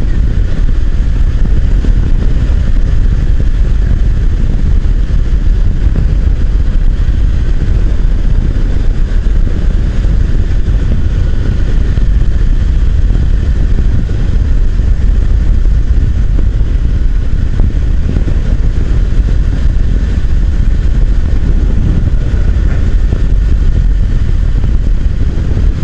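Motorcycle on the move, its engine running steadily under a loud, even wind rumble on the microphone.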